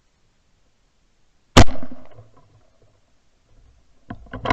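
A single gunshot about a second and a half in: one sharp, loud crack with a short echoing tail.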